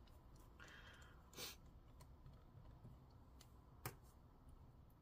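Faint clicks and light scraping of a small screwdriver working screws into a laptop chassis, with two sharper clicks about a second and a half in and near the end.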